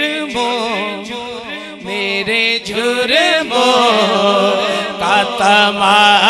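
Male naat reciter singing unaccompanied into a microphone, drawing out long gliding, ornamented phrases over a steady low hum. The singing grows louder about three seconds in.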